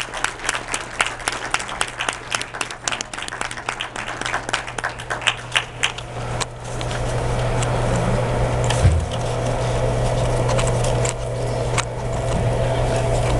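Audience applauding with many separate claps, dying away about six and a half seconds in. A steady low hum with a hiss then takes over.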